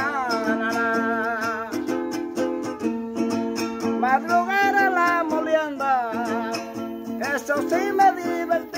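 A mejoranera, the small Panamanian five-string guitar, strummed in a steady repeating pattern as mejorana accompaniment, with a man singing drawn-out, wordless lines over it about four seconds in and again near the end.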